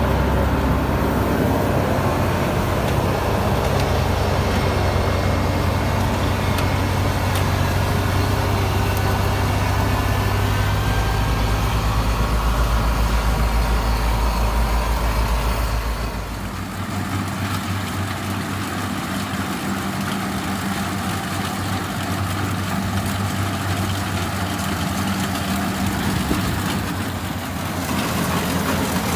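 Rice combine harvester's diesel engine running steadily. A little past halfway its deep low drone drops away and it goes on at a lighter, slightly quieter pitch.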